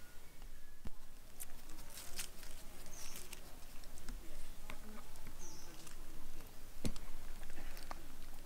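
Outdoor natural ambience: scattered small clicks and rustles over a faint background, with a short high chirp twice.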